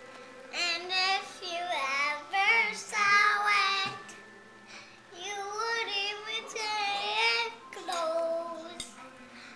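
A young boy singing a tune in short phrases, with a brief pause about four seconds in.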